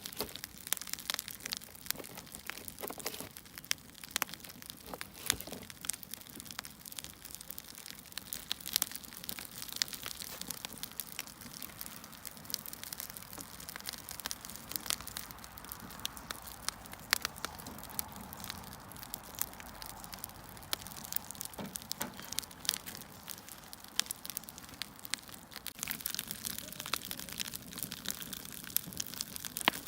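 Wood fire crackling: irregular sharp pops and snaps over a soft hiss.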